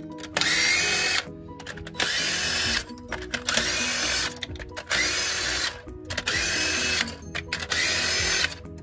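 DeWalt cordless impact gun spinning loosened head bolts out of a Honda 1.7-litre cylinder head, running free without hammering. It sounds as about six short bursts of motor whine, each rising in pitch as it spins up, with brief pauses between.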